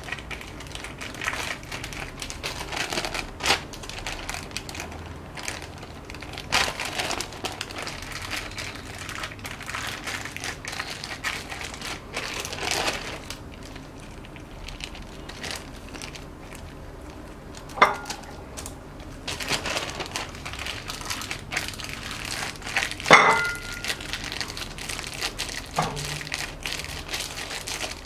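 Thin clear plastic sheet crinkling and rustling irregularly as hands roll soft dough around a banana on it, with a couple of sharper crackles, the loudest about three-quarters of the way through.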